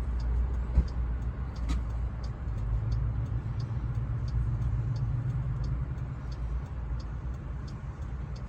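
2017 Jeep Grand Cherokee's hazard-light flasher ticking steadily, about three ticks every two seconds, over a low steady hum.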